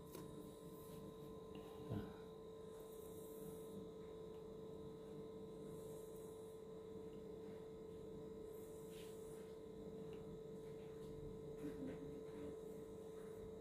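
A faint, steady hum with a fixed tone, and a single soft thump about two seconds in.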